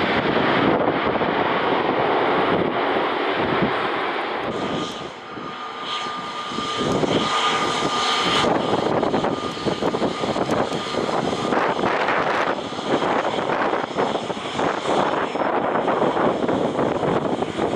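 Airliner engine rush with wind buffeting the microphone. About five seconds in the sound changes to an Airbus A320neo's jet engines, with a steady whine for a few seconds.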